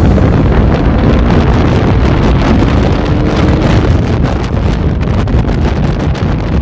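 Heavy wind buffeting on the rider's microphone at speed, with the KTM RC390's single-cylinder engine running beneath it.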